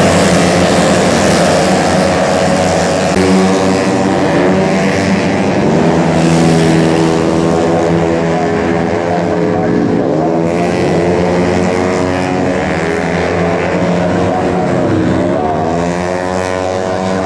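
Several tuned 130 cc racing automatic-scooter engines running together, their pitch falling and then rising again a few times as riders back off and open the throttle.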